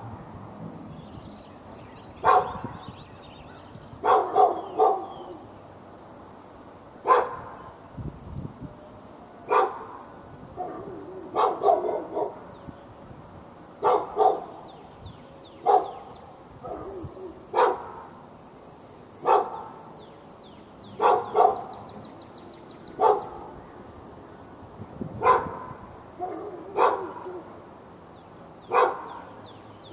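A dog barking over and over: single barks and quick runs of two or three, about every two seconds.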